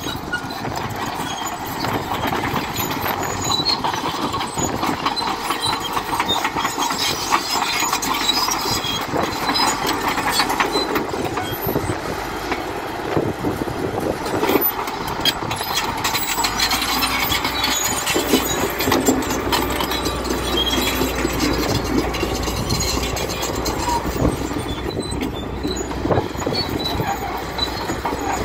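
Caterpillar D6 crawler tractor pulling a plough through the soil: its diesel engine running under load beneath a dense, steady clatter of the steel tracks.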